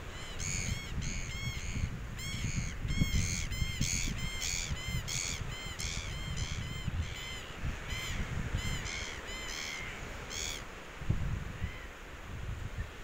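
A flock of birds on the shore calling: a quick, overlapping run of short high calls, two or three a second, that stops about ten seconds in. Low wind rumble on the microphone underneath.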